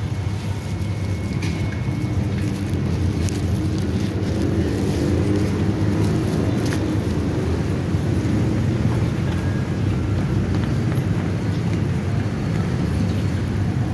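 A steady low rumble, with a few sharp clicks of apple snail shells knocking together as a gloved hand stirs them in a basin of water.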